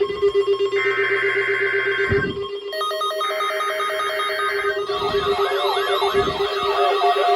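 Emergency-alert alarm tones layered together: a steady electronic tone sounds throughout, with higher buzzing tones switching on and off over it. From about five seconds in, several fast wailing sirens join in.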